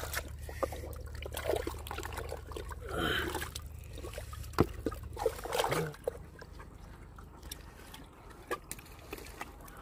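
Water trickling and dripping with small sloshes and splashes as live fish are lifted by hand out of a flooded trap pot and put into a plastic basin. Scattered small clicks and knocks are heard throughout.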